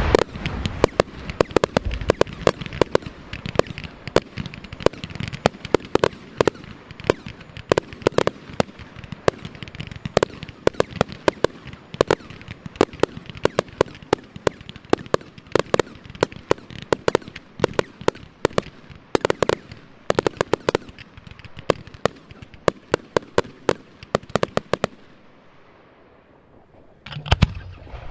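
Fireworks finale: a dense barrage of bursts and crackling reports, many per second. It dies away to near quiet about 25 seconds in, and bursts start again shortly before the end.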